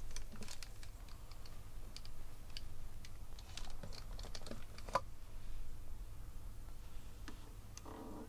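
Light plastic clicks and taps from handling a pair of corded over-ear headphones and their cable, with one sharper click about five seconds in.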